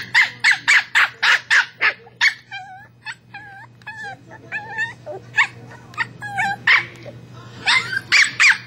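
West Highland White Terrier barking in a fast run of sharp, high barks, about three or four a second, then quieter wavering whines and yips in the middle, and barking again near the end.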